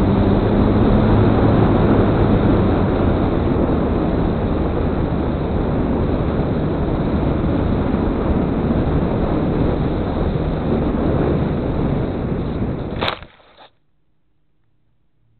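Steady rush of air over the microphone of a camera riding on a foam hand-launched glider in flight. About thirteen seconds in comes a sharp knock as the glider lands in tall grass, and then near silence.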